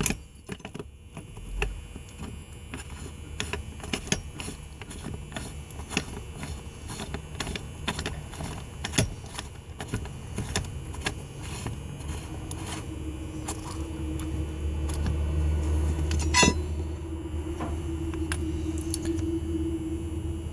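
Small metal clicks and clinks of deadbolt lock parts being handled and fitted back together, with one sharper click about sixteen seconds in. A low steady hum comes up in the second half.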